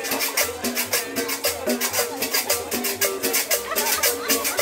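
Live Latin dance band playing an upbeat tune, with upright bass, drums and guitar, and a fast, even high rattle keeping time.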